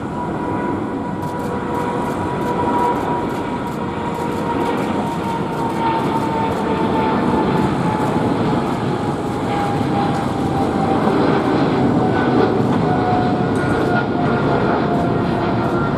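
Boeing 777-300ER's two GE90-115B turbofans at take-off thrust as the airliner lifts off and climbs away: a loud, steady jet roar with a fan whine that slowly falls in pitch.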